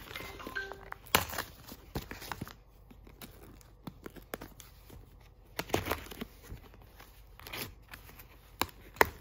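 Scissors snipping and tearing open a parcel's paper mailer and cardboard wrapping, with crinkling and rustling. There are scattered cuts and rips, and a sharp click just before the end is the loudest.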